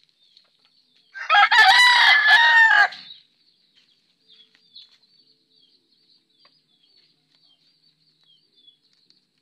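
A gamecock crows once, loudly, starting about a second in and lasting nearly two seconds. Faint high chirps sound in the background.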